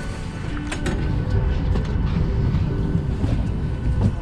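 Steady low rumble with scattered light clicks and knocks: the ambience of boarding a parked Boeing 737-800.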